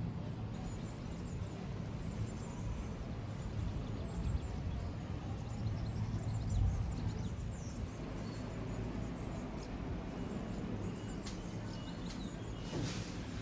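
Background ambience: a steady low rumble with a few faint high chirps about four seconds in and a brief rustle near the end.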